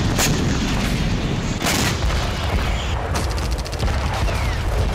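Battle sounds: heavy booms over a continuous low rumble, with a burst of rapid gunfire about three seconds in.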